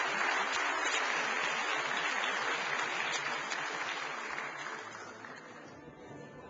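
Large theatre audience applauding, the applause fading away over the last couple of seconds.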